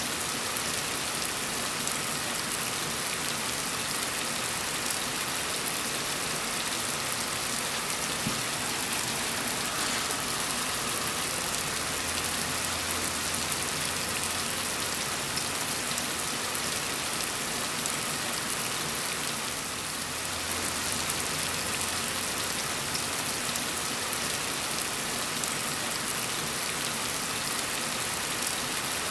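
Heavy rain falling steadily, an even, continuous hiss of rainfall with no single drops standing out.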